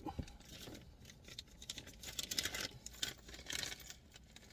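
Small plastic bag of screws crinkling and rustling irregularly as a hand rummages through it.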